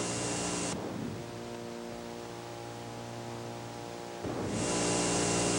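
Sustained musical drone from a film score: a steady held chord under a hiss that drops away about a second in and comes back near the end.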